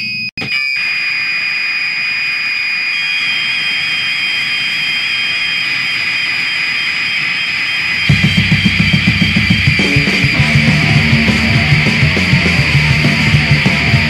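Noise-punk recording: after a split-second break, a droning wall of noise with steady high whining tones. About eight seconds in, the full band comes in with pounding drums, bass and distorted guitar.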